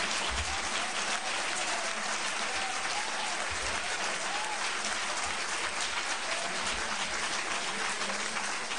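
Audience applause: many people clapping, dense and steady, without a break.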